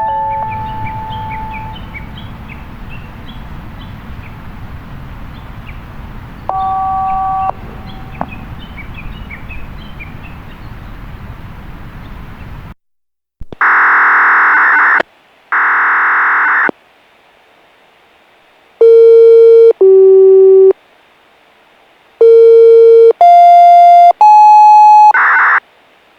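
The last note of a municipal outdoor loudspeaker chime fades out over open-air ambience with faint high chirps. About 13 seconds in the sound cuts off, and then comes a series of loud electronic beeps of about a second each at different pitches: two hoarse high ones, then five clear tones stepping down and back up.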